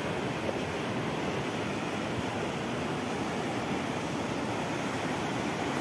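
Steady rush of a river flowing past its bank.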